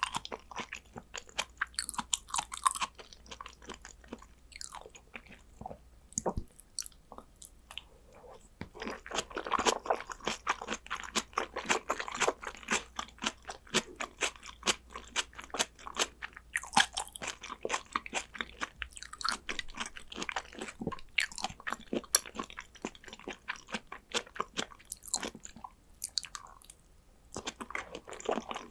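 A person chewing and biting into soy-sauce-marinated salmon, giving dense runs of quick mouth clicks and smacks. There is a quieter stretch about four to eight seconds in and another short lull near the end.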